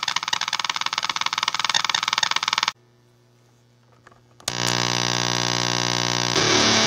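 Basic Audio Pendulum fuzz pedal in oscillation mode through a guitar amp, first making a rapid, high-pitched sputtering pulse, its 'woodland critters' setting, which cuts off suddenly. After a brief near-silent pause with faint hum, it sets in with a steady, continuous low-pitched drone that thickens near the end.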